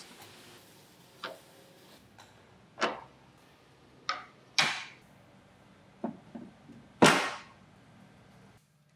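Wooden panels being set and pressed into place on a carved wooden car body: a handful of separate short knocks and clacks of wood on wood, the loudest about seven seconds in.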